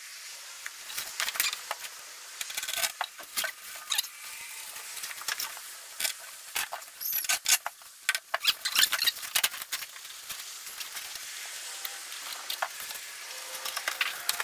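Car carpet rustling and scuffing as it is handled and fitted onto the floor pan, with many irregular clicks and scrapes.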